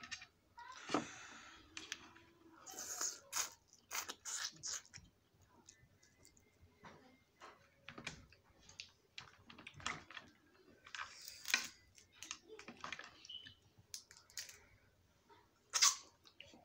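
Snow crab shells cracking and snapping as the legs are broken open by hand, in irregular sharp cracks. There are short bursts of chewing and slurping as the meat is eaten.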